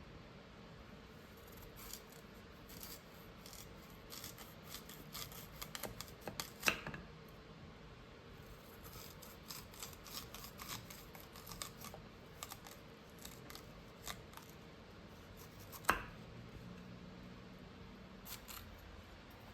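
Kitchen food-preparation sounds: runs of quick, light, crisp strokes of a hand tool working on food, with two louder knocks, one about a third of the way in and one near the end.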